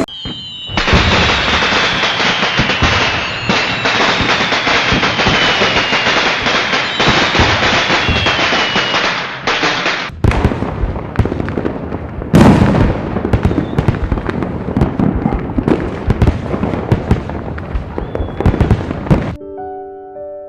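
Fireworks going off densely: rapid crackling and popping with sharper, louder bangs among them. It cuts off suddenly near the end.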